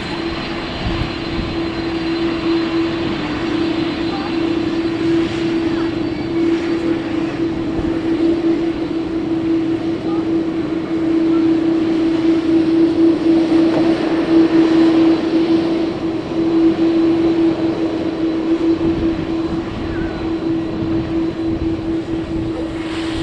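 Jet airliner engines running with one steady droning tone, growing somewhat louder in the middle, under gusty wind buffeting the microphone.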